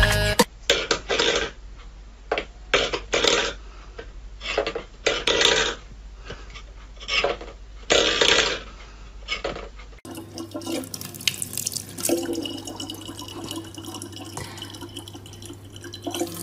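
Stainless-steel pet bowls knocked about on a wooden floor by a cat: a string of separate metal clanks and scrapes. About ten seconds in it switches to a tap running a thin stream of water into a plastic bottle, a steady splashing.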